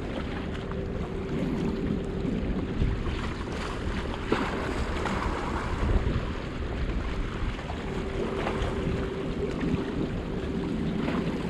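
Wind buffeting the microphone over choppy harbour water, with a faint steady hum that drops out for a few seconds midway. A single sharp click about four seconds in.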